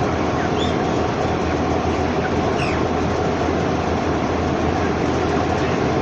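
Inside a broiler house of three-week-old broiler chickens: a loud, steady mechanical drone with a low hum, and a few faint high cheeps from the birds.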